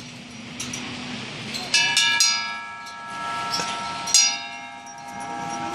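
Hanging brass bell rung by tugging its clapper rope: three strikes, two close together about two seconds in and a third about two seconds later, each leaving a long, slowly fading ring.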